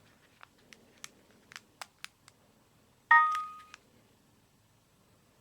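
Sony Ericsson K320i mobile phone: a few light, irregular clicks over the first two seconds, then a short electronic chime about three seconds in. The chime holds several tones at once and fades within about half a second, and one more click follows it.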